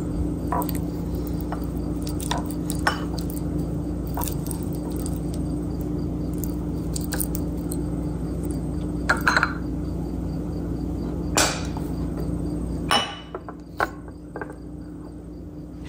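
A spoon scraping and tapping against a glass bowl and a ceramic dish as soft wet dog food is scooped out, giving scattered clinks and knocks. A steady low hum runs underneath and drops away about three seconds before the end.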